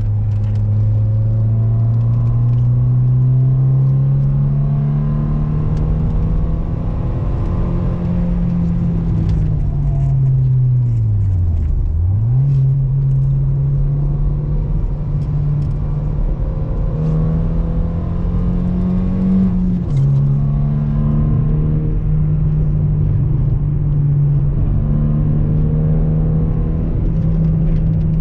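Seat Ibiza's engine heard from inside the cabin while lapping a track, with steady road rumble. The engine note climbs steadily for the first several seconds. About twelve seconds in the revs drop sharply and pick straight back up, and near twenty seconds they drop again before settling at a steady pitch.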